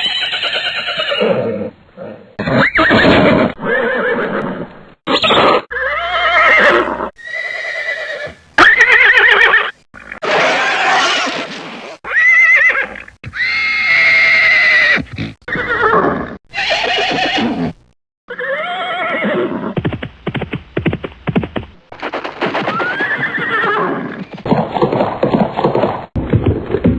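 A string of separate horse whinnies and neighs, one cut hard against the next. Each is a shrill, shaking call that falls in pitch. About two-thirds of the way through comes a run of short, sharp knocks.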